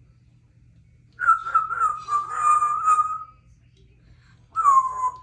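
Congo African grey parrot whistling: a long, wavering whistle of about two seconds, then a shorter whistle that falls in pitch near the end.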